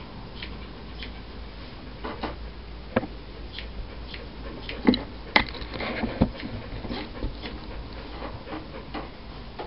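Grooming scissors snipping through a Soft-Coated Wheaten Terrier's coat: scattered, irregular short clicks, with a few louder ones around the middle.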